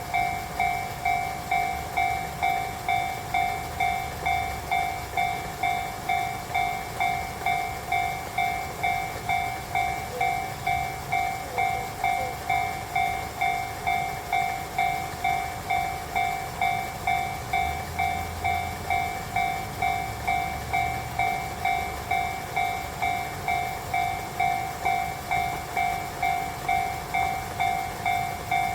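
Japanese railroad crossing warning bell ringing steadily, repeating about one and a half times a second, signalling that the crossing is closed for an approaching train.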